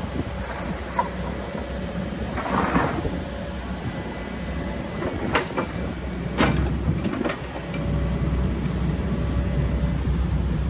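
Hitachi ZX135 crawler excavator's diesel engine running with a steady low rumble, with a few sharp knocks about halfway through; the engine gets louder near the end.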